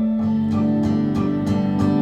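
Background music: guitar strummed about three times a second over held chords.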